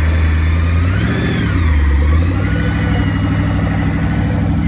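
Car engine idling steadily with a short blip of the throttle about a second in.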